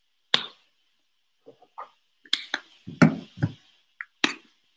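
Plastic paint bottles being handled and set down on a countertop: a knock near the start, then a cluster of knocks and clunks a little past the middle, and one more near the end.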